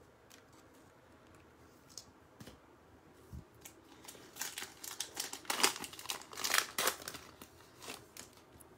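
A foil Prizm basketball card pack being torn open, its wrapper crinkling loudly for a few seconds from about four seconds in. Before that there are only a few light taps.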